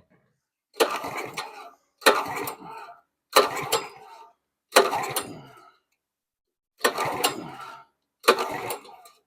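Honda GX270 engine on a pressure washer being pull-started six times with its recoil starter cord, each pull a quick rush of cranking that dies away without the engine catching. It is a no-start, with fuel and oil already dealt with and a spark problem still to be checked.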